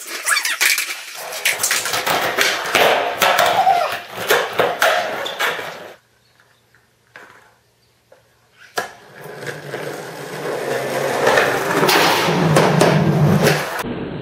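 Skateboard wheels rolling on a concrete floor, broken by sharp clacks of the board. After a few seconds of near silence about six seconds in, the rolling comes back and swells into a loud low rumble as the board nears, peaking just before the end.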